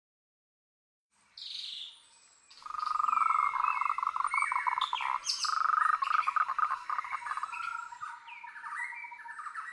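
A chorus of birdsong: chirps, whistles and rapid trills. A single short call comes a little over a second in, and the chorus fills out from about two and a half seconds, thinning slightly near the end.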